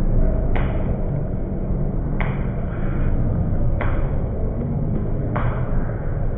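Ballpark crowd noise heard as a steady low rumble, with a sharp knock repeating about every one and a half seconds.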